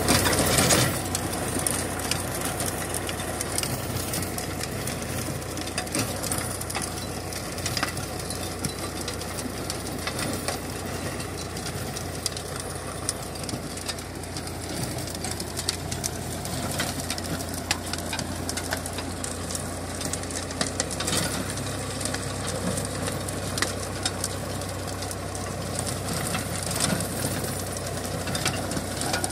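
Tractor diesel engine running steadily under load while driving a Sonalika Challenger rotavator, its blades churning through the soil, with scattered knocks and clatter.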